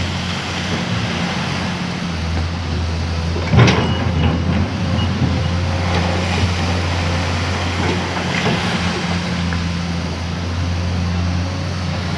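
Komatsu PC210 hydraulic excavator's diesel engine running steadily under working load, with a single sharp metallic knock about three and a half seconds in and a couple of lighter knocks later.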